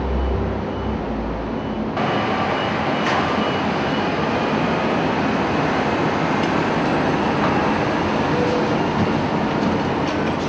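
Loud, dense industrial din of port cargo-handling machinery working: container cranes, straddle carriers and loaders, a steady rushing racket with a few faint steady tones running through it. It gets louder about two seconds in and cuts off abruptly at the end.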